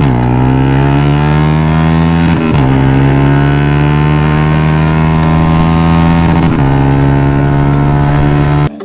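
Yamaha Sniper 150's single-cylinder engine through an aftermarket SC Project exhaust under full-throttle acceleration. The pitch climbs through each gear and drops at upshifts near the start, about two and a half seconds in, and about six and a half seconds in. It cuts off abruptly near the end.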